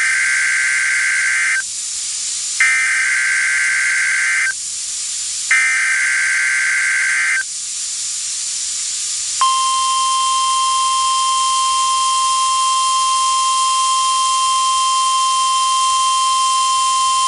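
NOAA Weather Radio Emergency Alert System alert: three shrill digital header data bursts of about two seconds each, then, about nine seconds in, the steady single-tone 1050 Hz warning alarm, all over radio hiss. The alarm signals that an emergency message, here a tornado watch, is about to be read.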